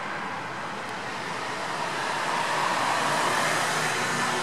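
Street traffic noise, with a road vehicle passing and growing louder from about two seconds in, then easing slightly near the end.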